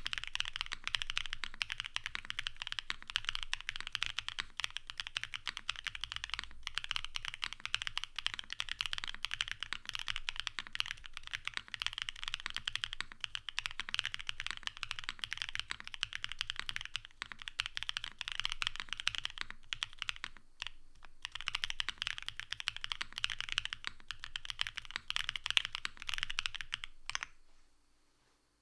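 Fast, continuous typing on a Space80 gasket-mounted mechanical keyboard with Vertex V1 switches, an FR4 plate, case, IXPE and plate foam, and DMK Relic keycaps: a dense run of key clicks with a brief pause, stopping about a second before the end.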